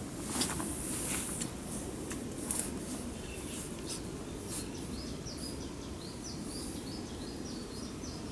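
A small songbird singing a run of short, high, repeated chirping notes from about three seconds in, over a steady low background rush, with a few sharp crackles in the first seconds.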